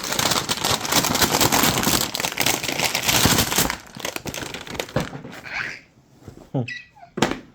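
Packaging of a toy surprise egg crinkling and rustling as it is unwrapped, dense and loud for the first four seconds, then quieter handling with a couple of sharp clicks near the end.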